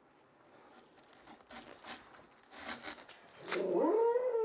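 Bench chisel paring waste out of a saw-cut housing in plywood, a few short scraping cuts. Near the end a louder drawn-out pitched sound comes in, rising and then falling.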